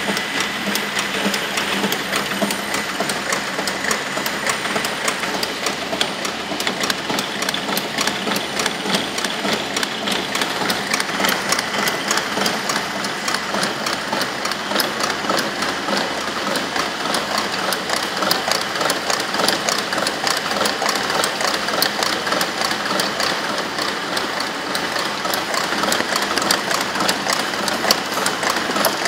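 A Rose industrial machine running, its cams, shafts and gears making a steady, fast, even mechanical clatter of ticks.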